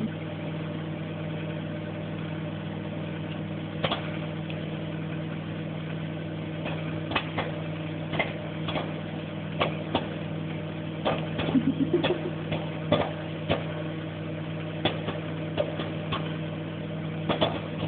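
Microwave oven running with a steady hum, with popcorn kernels popping inside: single pops begin about four seconds in and come more and more often.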